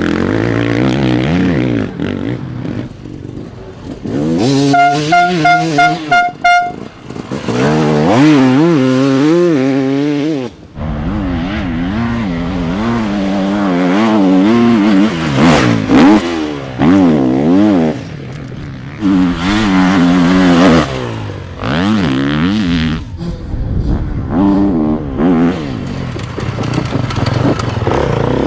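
Enduro dirt bike engines revving hard as the bikes accelerate through corners, the pitch rising and falling with throttle and gear changes. About five seconds in there is a quick stuttering run of short pulses.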